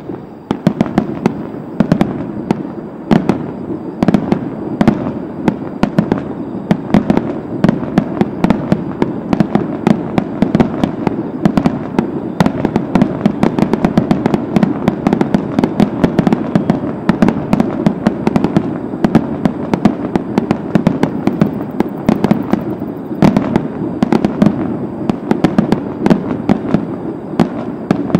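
Aerial fireworks in a rapid, continuous barrage: many sharp bursts and crackles a second over a steady rumble.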